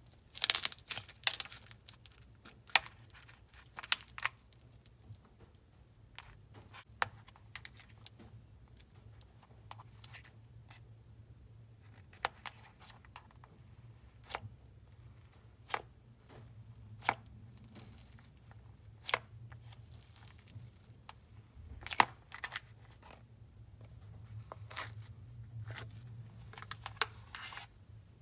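Hands kneading and stretching a micro foam bead crunch slime mixed with clear slime, giving scattered sharp crunchy crackles and pops. There is a dense burst of them in the first second and a half, a single loud pop about 22 seconds in, and a run of crackling a few seconds before the end.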